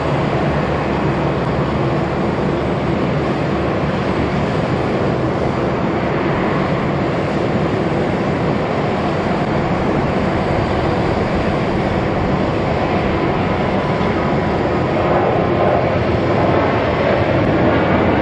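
Boeing 787-10's Rolls-Royce Trent 1000 turbofan engines running at taxi power, a steady engine roar with a faint whine in it, growing a little louder over the last few seconds.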